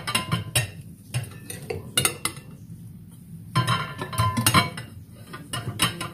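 Cutlery and dishes clinking in irregular clusters of sharp clinks, with short pauses between.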